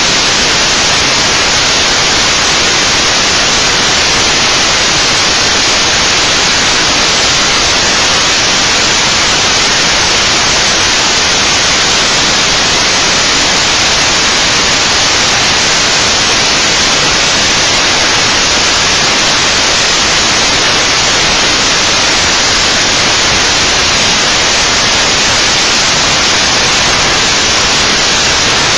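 Loud, even static hiss like white noise, unchanging in level and with no other sound in it.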